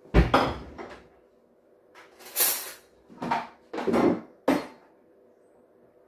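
Kitchen clatter: a heavy thump right at the start, then a scrape and a few knocks between about two and five seconds in, over a faint steady hum.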